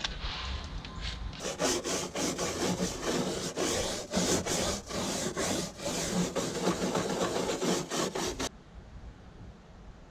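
A stiff kitchen scrub brush scrubbing bleach into a mold-stained plastic boat seat in quick back-and-forth strokes for about seven seconds, stopping abruptly near the end.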